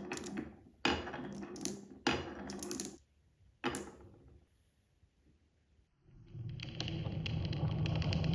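Marbles on a wooden marble run: a few sharp clacks of marbles striking the wooden track in the first few seconds, then from about six seconds marbles rolling down the wooden wave slopes, a rumble with rapid ticking that grows louder.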